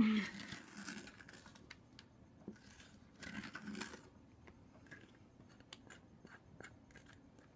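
Metal soup spoon scraping seeds and stringy pulp out of a halved butternut squash: faint, scattered scrapes and light clicks.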